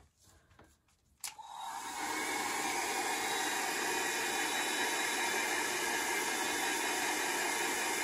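Revlon dryer brush, its brush head removed, used as a blower: switched on with a click about a second in, its motor and fan come up to speed within a second and run steadily.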